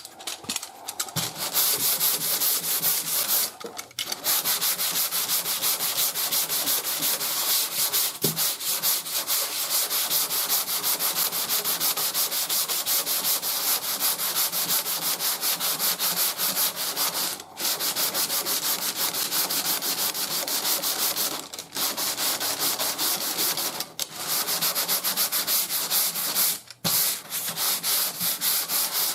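Sandpaper on a sanding block rubbed back and forth over primer surfacer on a car fender, in quick, even strokes broken by a few short pauses. The block is working down a low spot in the bodywork.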